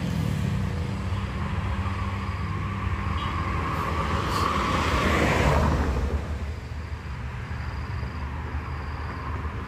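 Road traffic: a steady engine hum, with a vehicle passing by that grows to its loudest about five seconds in and then fades away.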